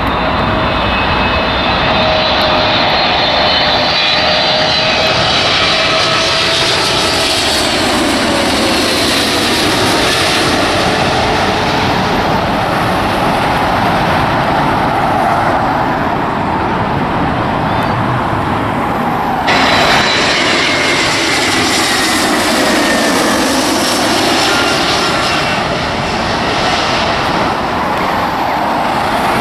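Jet airliner engines on final approach, a loud steady rush with a whine that glides down in pitch as the aircraft passes. About two-thirds through, the sound cuts abruptly to another approaching jet with the same sound.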